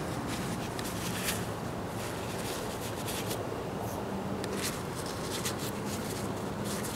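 Shop towel rustling and rubbing as a small metal bolt is wiped clean by hand: a few short scratchy strokes over a steady background hiss.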